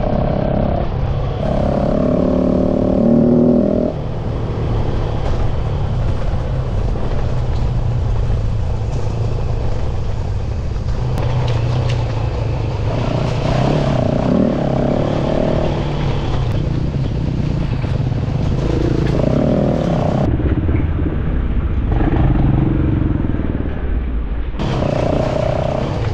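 Off-road motorcycle engine running while riding, its revs rising and falling, over a steady low rumble.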